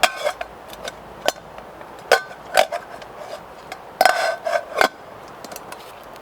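Metal camping cookware being handled: a string of clinks and knocks of a pot and its lid, some with a short metallic ring, busiest about four seconds in.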